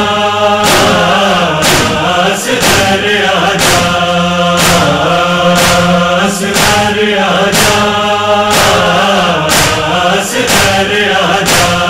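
Noha lament: chorus voices chanting a long, held refrain over a steady beat of about one stroke a second.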